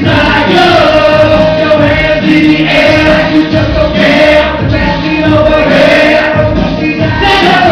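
Loud music with several voices singing held notes together.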